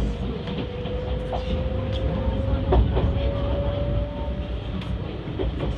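E651 series electric train heard from inside the passenger car as it pulls away from a station: a steady running rumble under a motor tone that slowly rises in pitch as it gathers speed, with scattered knocks from the wheels on the track.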